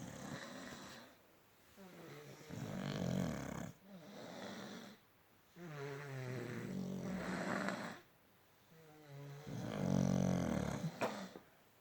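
Two sleepers snoring in turns: about five long, rasping snores, each one to two seconds long with short pauses between, the loudest near the end.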